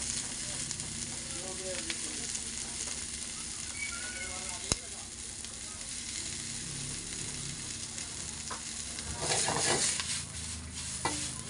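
Noodles and shredded vegetables sizzling in a hot wok on a gas stove, with a steady hiss. A single sharp click comes just before halfway. A louder rush of sizzling near the end comes as the wok is tossed.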